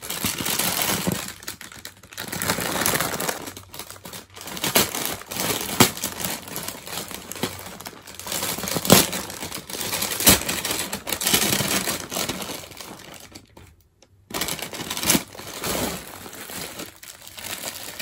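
Plastic mailer bag crinkling and rustling in irregular bursts with sharp crackles as it is opened and rummaged through by hand. There is a short silent gap about fourteen seconds in.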